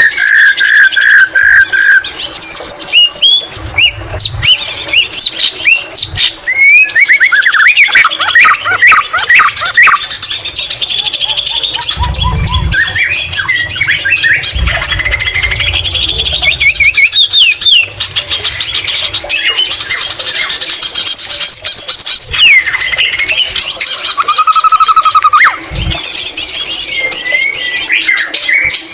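White-rumped shama (murai batu) singing loudly and without pause: fast, varied phrases of whistles, trills and chatter, its song filled with phrases learned from the greater green leafbird (cucak ijo).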